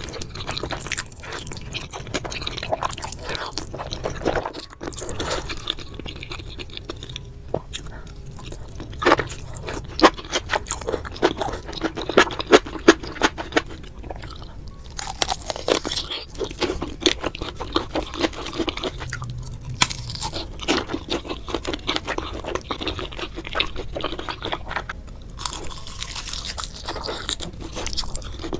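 Close-miked eating sounds: biting and chewing through noodles and sausage, with many quick, irregular crunchy clicks and mouth noises.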